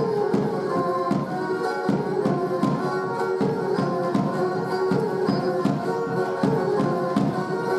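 Live Pontic folk dance music: a Pontic lyra (kemenche) plays the melody over a steady beat on a large two-headed daouli drum.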